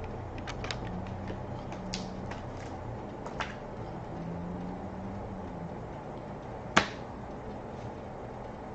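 Trading cards being handled: a few light clicks and taps, then one sharper tap about seven seconds in, over a steady low hum.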